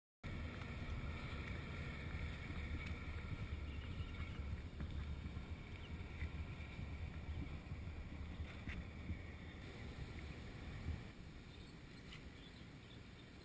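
Wind buffeting a GoPro Hero2's microphone: a steady low rumble with a few faint ticks, dropping a little about eleven seconds in.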